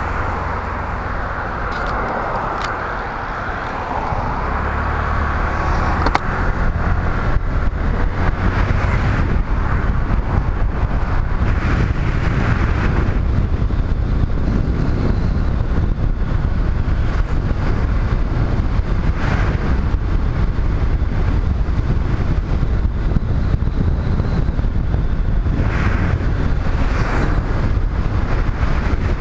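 A motorcycle riding along at road speed: its engine and tyres under wind rushing over the camera microphone, louder from about six seconds in.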